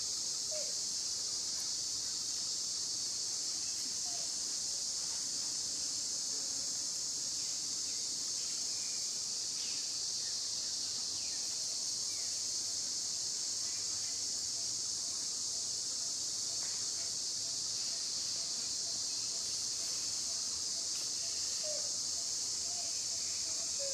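A steady, high-pitched insect chorus drones without a break, with a few faint short chirps over it.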